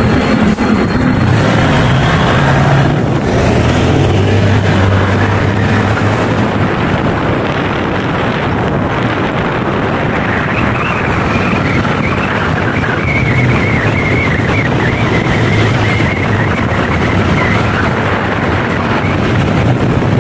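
Honda PCX 160 scooter running at cruising speed through a road tunnel, its engine steady under a dense wash of wind and road noise.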